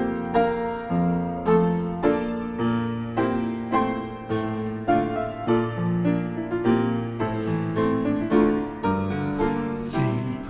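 Grand piano playing the opening of a choral anthem: a steady run of struck chords that ring and fade, with no singing yet.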